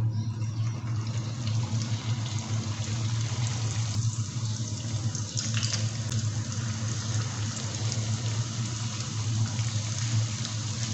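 Kachori deep-frying in hot oil in a kadai: a steady sizzle with small crackles, over a steady low hum.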